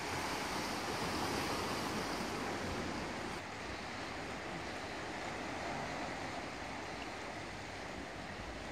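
Sea waves washing over shore rocks: a steady rushing of surf.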